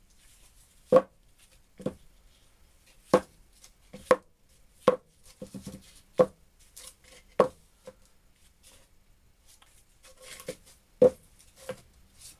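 Homemade steel V-blocks being knocked against each other and set down on the bench: about a dozen sharp metal clunks at irregular intervals, some with a short ring.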